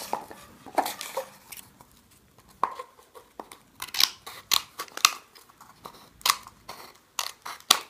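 Scissors snipping through a rolled cone of magazine paper: a series of short, sharp cuts at irregular intervals.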